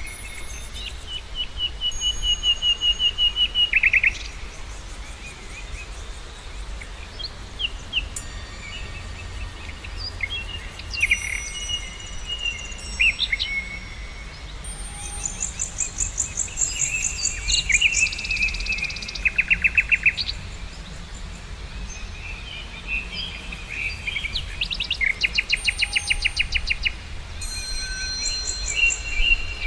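Several birds singing and calling at once: overlapping chirps, whistled notes and fast rattling trills, with a steady low rumble underneath.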